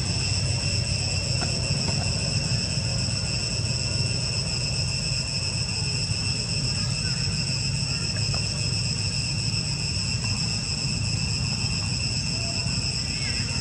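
Steady chorus of insects: several continuous high-pitched tones at an even level, over a steady low rumble.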